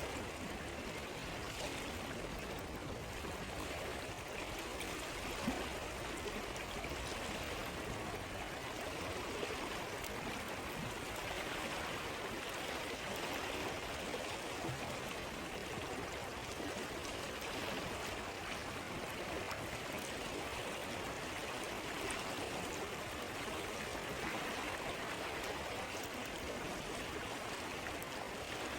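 Stream running steadily over stones, with occasional faint clicks of a crackling campfire, one sharper pop about five seconds in.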